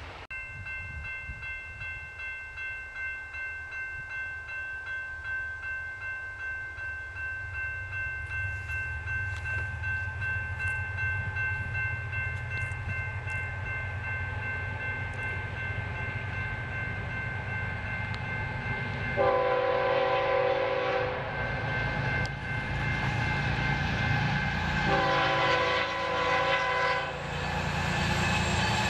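Grade-crossing warning bell ringing in a steady pulse while the rumble of an approaching diesel freight train grows. About two-thirds of the way in, the lead GE ES44C4 locomotive's air horn sounds two long blasts for the crossing, and a third begins near the end.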